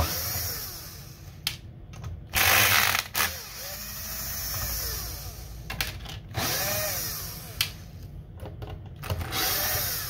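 Cordless power driver backing screws out of an Xbox Series X chassis in several short trigger pulls, its motor whine rising and falling with each run.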